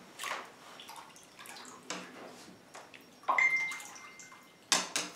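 Handmade topwater lure with spinning arms pulled across the water of a bathtub, making light irregular splashes and drips. About three seconds in there is a louder splash, followed by a thin steady high tone lasting over a second, and another sharp splash near the end.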